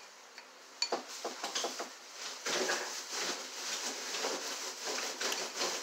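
A person chewing a mouthful of cheesy noodles and shrimp, with a sharp click of the fork about a second in, then a steady run of close wet chewing sounds.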